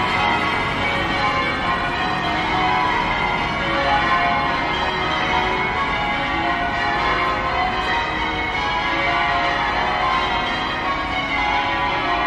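Cathedral bells ringing close by, many bells sounding in quick, overlapping succession without a break.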